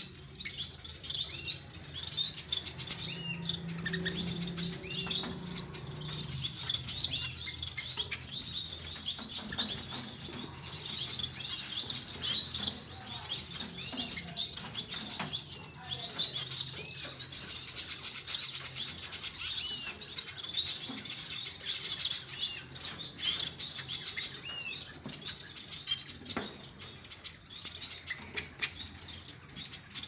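Small aviary finches chirping: a continuous stream of short, high chirps from several birds calling over one another.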